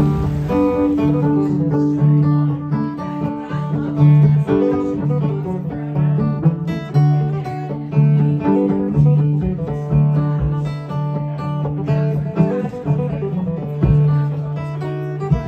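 Bluegrass-style acoustic string band music, with guitar and banjo playing.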